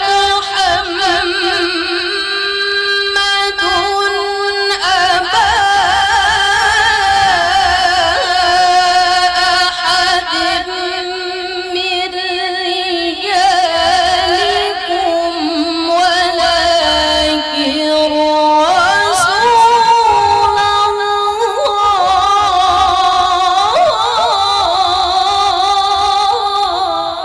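A woman reciting the Quran in melodic tilawah (qira'ah) style. She holds long, ornamented notes that waver and glide between pitches, and the phrase ends right at the close.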